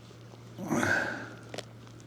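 A person sniffing once, a short breathy burst about half a second in, followed by a small click.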